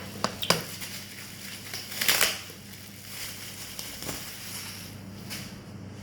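Packaging and items being handled: three quick sharp clicks or taps, then a short crunching rustle of packaging about two seconds in, with a few fainter knocks after, over a steady low hum.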